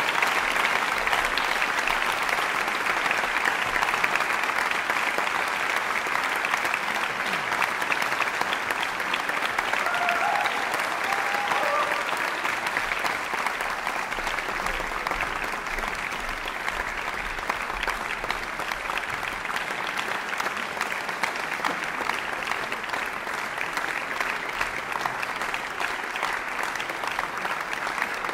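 Audience applauding steadily, the clapping slowly fading.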